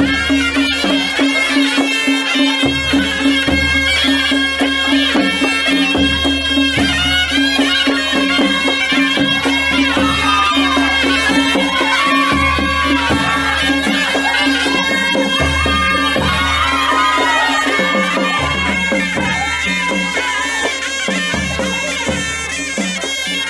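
Traditional folk music: a reedy wind instrument plays a winding melody over a steady held drone, with a low drum beat underneath.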